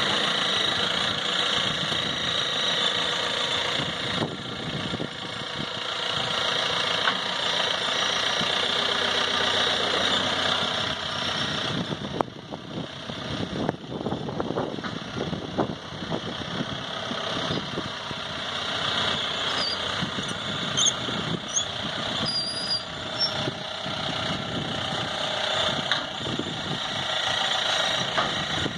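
Willys jeep engine running at low speed as the jeep drives up ramps onto a pickup truck's bed, steady with small rises and falls and a brief dip about twelve seconds in.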